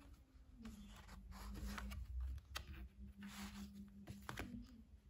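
Faint rustling and handling of a paperback picture book as it is closed and flipped over to its front cover, with a couple of light taps.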